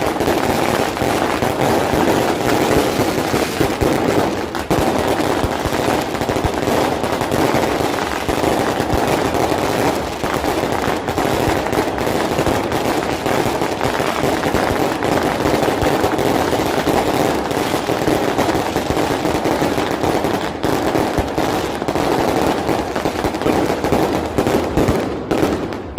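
Fireworks and firecrackers going off in a dense, continuous barrage of rapid bangs and crackles, thinning out near the end.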